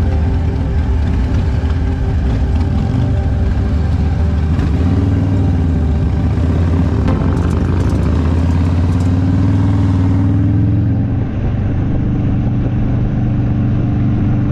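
Harley-Davidson V-twin motorcycles running at the roadside and pulling away, the engine note rising as they accelerate a little past the middle. About ten seconds in the sound changes to a steady engine note of the bike cruising on the road.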